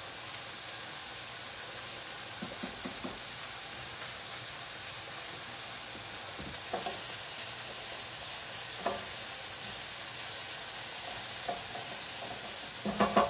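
Diced prosciutto sizzling steadily as it sautés in a little oil in a stainless steel skillet. A few light knocks come from a wooden spoon stirring the pasta pot, a little louder near the end.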